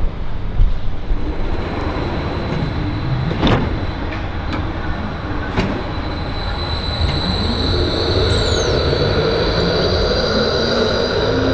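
Bombardier E-class low-floor electric tram running past at close range: a low rumble of wheels on rail with a steady high-pitched whine that grows louder from about halfway through. Two sharp clicks come near the middle, and a brief falling squeak about three quarters of the way in.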